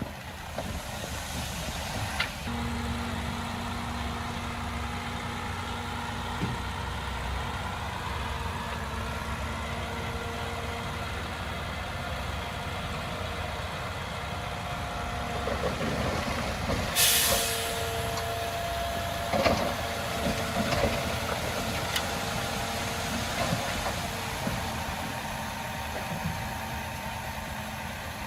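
Heavy diesel construction vehicle running steadily. About 17 seconds in there is a short burst of air hiss, like a truck's air brake being released, and a few knocks follow around 19 to 21 seconds.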